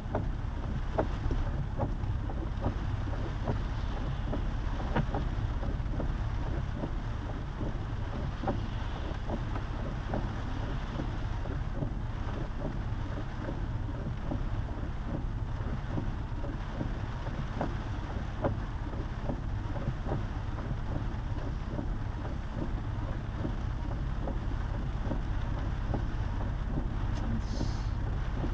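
Road noise inside a lifted Jeep's cabin while driving: a steady low rumble with many small, scattered ticks throughout.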